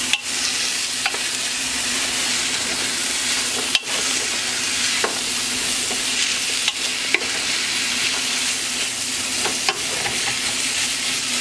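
Sliced bell peppers, onions and broccoli sizzling in oil in a large aluminium pot while a wooden spoon stirs them, with scattered sharp clicks of the spoon against the pot.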